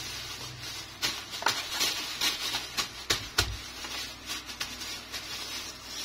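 Thin plastic bag full of cut squash pieces crinkling and rustling as it is handled and twisted shut, in scattered crackles, with a soft thump a little past halfway.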